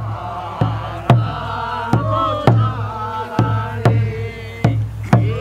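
Korean rice-paddy weeding song: a buk barrel drum struck with a stick in a steady beat, with voices singing a slow, wavering melody over it.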